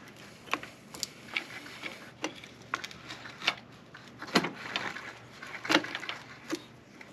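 New JT motorcycle drive chain clicking and clinking in irregular sharp clicks as it is fed around the sprockets, with the rear wheel turned by hand.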